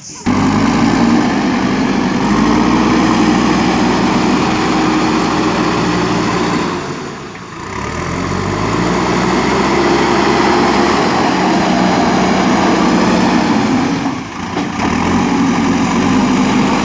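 JCB 3DX backhoe loader's diesel engine running steadily while working. The engine speed briefly drops and picks up again twice, about seven and fourteen seconds in.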